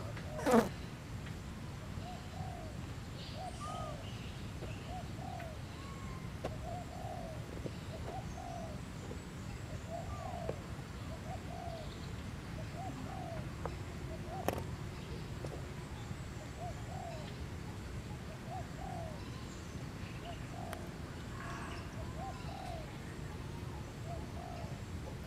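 A dove cooing over and over, soft low notes in twos and threes. A sharp, loud sound with a quick falling sweep comes about half a second in, and a single click near the middle.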